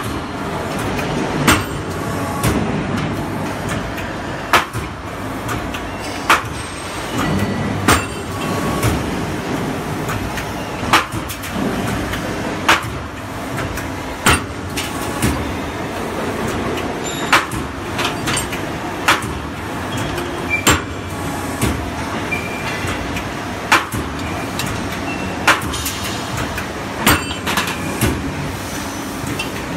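Hydraulic angle-iron flange punching and cutting machine at work: sharp metallic strokes about every one to two seconds over a steady mechanical running noise.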